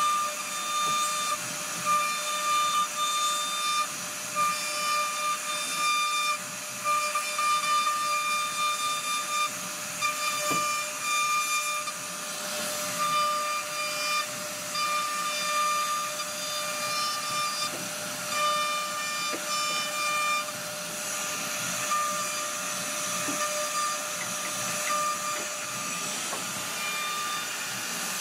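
CNC router spindle whining at a steady high pitch as its carving bit cuts a relief pattern into a wood panel, over a constant hiss of cutting. The whine breaks off and comes back every second or two as the bit moves through the work.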